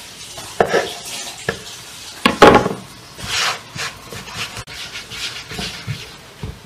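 Hands working dough on a floured wooden board: soft rubbing and a few light knocks, with a louder knock on the wood about two and a half seconds in.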